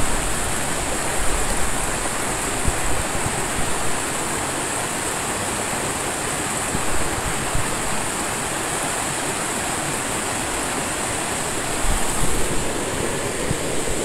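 Shallow stream rushing and splashing over rocks: a steady, even water noise.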